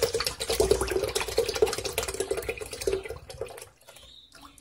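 Evaporated milk poured from a can in a steady stream into milky liquid in a plastic pitcher, splashing; the stream thins and stops about three and a half seconds in.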